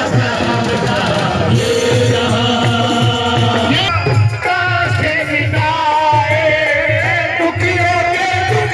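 Devotional Holi song: voices singing a wavering melody over a steady low drum beat.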